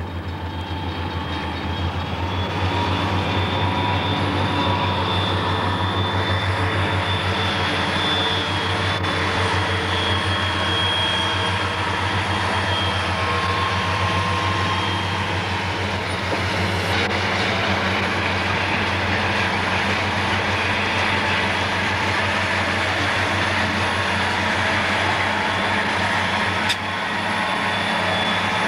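Southern Pacific diesel-electric freight locomotives running under power: a steady, loud low drone with rail and wheel noise, heard from a car driving alongside the train, so road noise mixes in.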